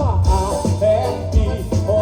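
Live forró band playing: a melody line gliding over a steady bass and drum beat.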